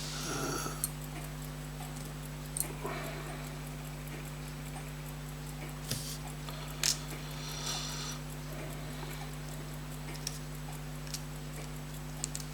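Scattered light clicks and taps of small tools handling tiny watch parts on the bench, about eight in all, the sharpest a little past halfway. They sit over a steady low electrical hum.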